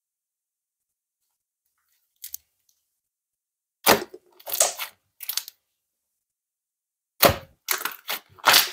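Green puffy slime pressed and squeezed by hand, its trapped air bubbles popping and crackling loudly. The sharp pops come in a cluster about four seconds in and another near the end, after a few silent seconds.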